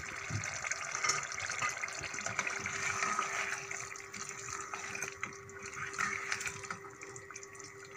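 Potato cubes in a thick tomato-onion gravy bubbling and sizzling in a pot as a spoon stirs them, with a steady low hum underneath.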